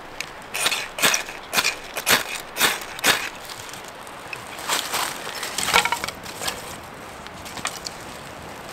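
Knife scraping a ferrocerium rod over a nest of birch bark: a quick series of short, sharp strikes throwing sparks to light the bark, a few more strokes about five seconds in, then fainter scattered crackles as the flame takes.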